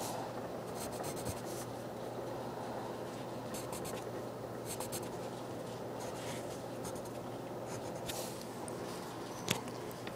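Pen scratching on paper in short bursts of drawing strokes, over a steady low hum. A sharp click comes near the end.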